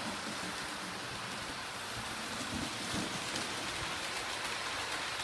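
Hornby OO-gauge model trains running on the layout's track close by: a steady rushing rattle of the wheels on the rails, with a few low knocks about two to three seconds in.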